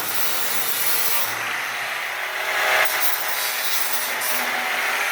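A power tool running steadily in a workshop, a noisy hiss-and-grind with brief changes about every second and a half.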